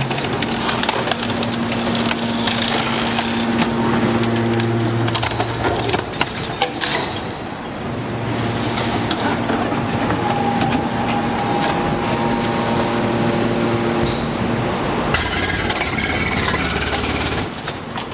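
Hydraulic scrap metal shear baler working under load: its hydraulic drive hums steadily in two long strokes, over continuous cracking and clattering of loose scrap metal being pressed.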